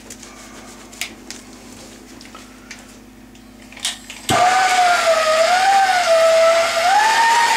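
A few light clicks of handling, then about four seconds in a loud tool starts suddenly and runs steadily: a hiss with a whine that wavers and steps up in pitch near the end.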